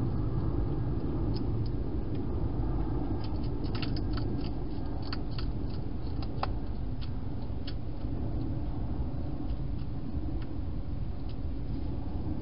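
A wild hedgehog crunching dry food inside a plastic feeding box: scattered crisp clicks, thickest from about three to seven seconds in, over a steady low rumble.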